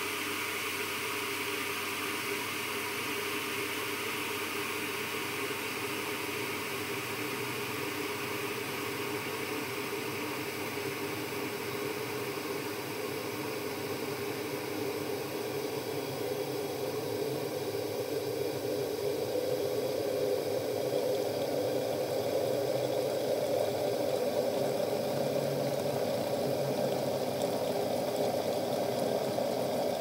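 Water heating in a glass electric kettle beside a stovetop kettle on a portable gas burner: a steady hiss that grows into louder bubbling about two-thirds of the way in, as the electric kettle comes to a rolling boil.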